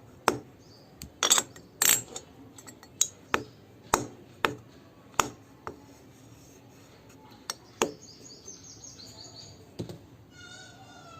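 Irregular sharp clicks and clinks, a dozen or so, of metal and glass parts and a tool knocking together while a scooter's chrome mirror is worked on.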